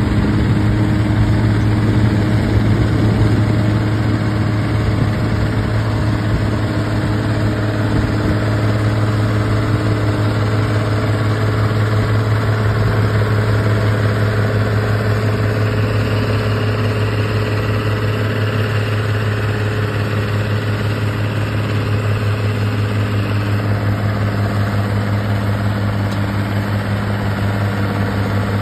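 Allis-Chalmers farm tractor engine working steadily under load as it drags a weight sled down a pulling track, holding one even pitch with no revving.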